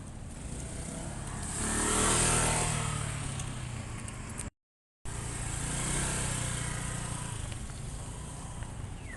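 A motor vehicle passing close by, its engine and tyre noise swelling to a peak about two seconds in and fading. After a half-second dropout, a second pass swells and fades.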